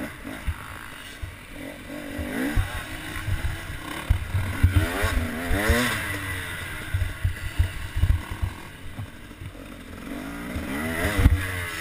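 KTM 250 two-stroke single-cylinder motocross bike revving hard, its pitch rising and falling several times as the rider accelerates and backs off through the corners and straights. Low thumps break in now and then, loudest about eleven seconds in.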